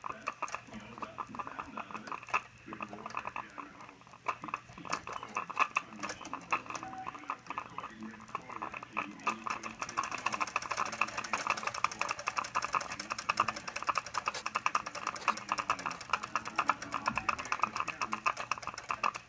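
Small model steam engine with a double-acting cylinder running an Erector set build, giving a fast, continuous clicking clatter of its exhaust and metal gearing. It gets louder and busier about halfway through.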